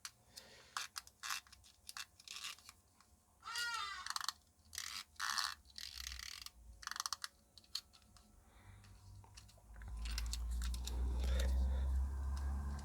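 Scattered small clicks and crackles of a plastic clock case and mechanism being handled, with a brief squeak about three and a half seconds in. A low rumble sets in near the end.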